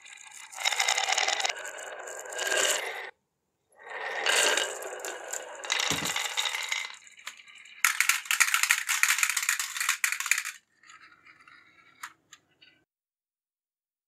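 Marbles rolling down wavy-grooved wooden tracks, a fast clattering rattle as they knock through the curves. It comes in three runs of a few seconds each, then trails off into a few lone clicks.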